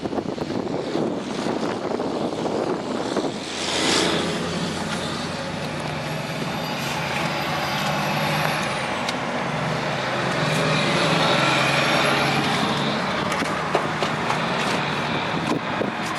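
Truck running, its engine a low steady hum under a broad rush of road noise, which swells briefly about four seconds in.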